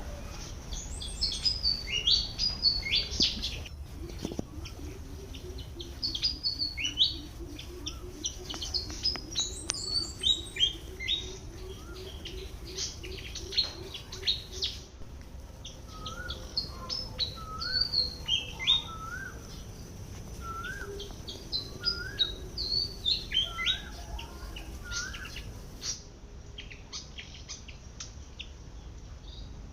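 Malaysian pied fantail calling: quick phrases of bright, squeaky, high-pitched notes, repeated with short gaps. In the second half a lower, evenly repeated rising note comes in under them, and a low wavering hum runs through the first half.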